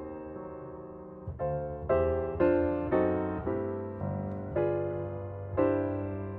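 Soft background piano music: single notes and chords struck one after another, each ringing and fading.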